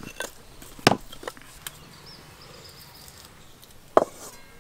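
Dry firewood sticks knocking against each other and the clay stove as they are laid into a mud chulha, a few sharp knocks in the first couple of seconds. Then a quiet outdoor background with a faint high chirp, and one sharp click near the end.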